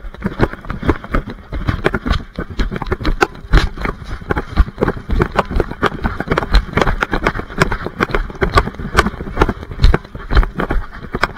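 A harness-mounted action camera rubbing and knocking against a chocolate Labrador's fur: a dense, irregular run of scratchy crackles and low thumps as the dog moves.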